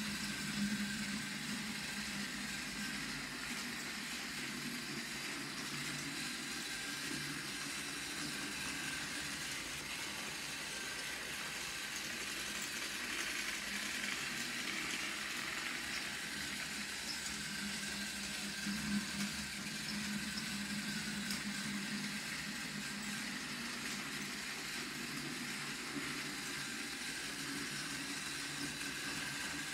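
Battery-powered TrackMaster Dart toy engine pulling its trucks around a plastic track: a steady small-motor whir with the rattle of wheels on the track, louder for a few seconds midway as it runs close by.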